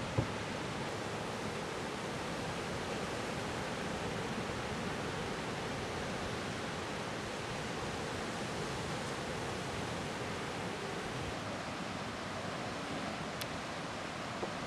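Steady rush of breaking ocean surf, an even hiss with no separate wave crashes standing out. A single short knock right at the start.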